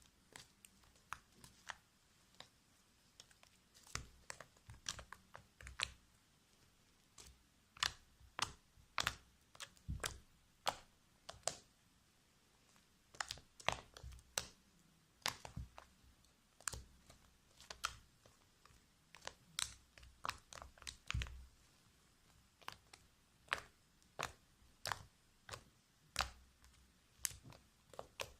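Fluffy slime being kneaded and pulled by hand, giving irregular sharp clicks and small pops, about one or two a second with short pauses. The slime is still sticky, not yet thickened enough.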